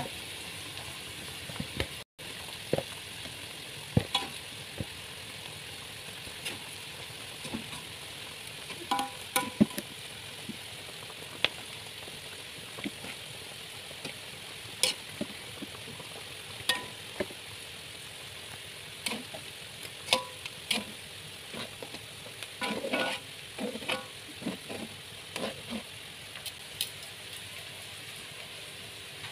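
Spiced chicken braise (ayam ungkep) sizzling steadily in a pan, with a utensil clicking and scraping against the pan every few seconds as the cooked pieces are lifted out.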